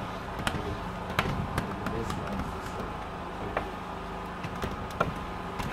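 Plastic squeegee working wet window film onto glass: scattered light clicks and taps at irregular intervals over a steady low rumble.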